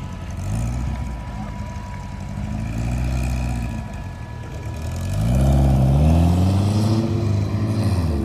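A line of cars and trucks passing one after another, their engines swelling and fading. In the second half a louder vehicle accelerates past, its engine note rising.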